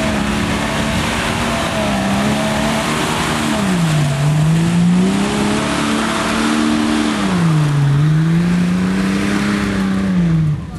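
Off-road truck engine under heavy throttle in mud, its revs holding high, sagging deeply twice and climbing back each time, over a steady rush of spinning tires and flung mud.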